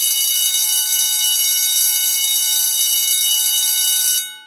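Electric school bell ringing steadily, then cutting off about four seconds in with a short ring-out.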